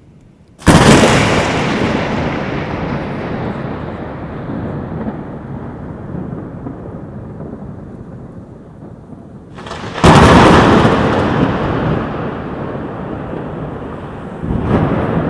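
Loud, close thunder. A sudden crack under a second in rolls away in a long fading rumble, a second clap hits about ten seconds in and rumbles down the same way, and a third begins near the end.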